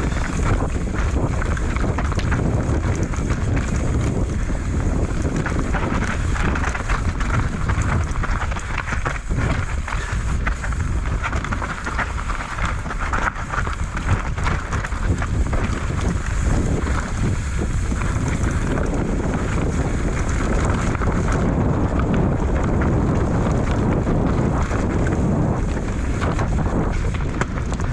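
Wind buffeting an action camera's microphone during a fast mountain-bike descent, with the tyres and bike rattling and jolting over rough dirt trail.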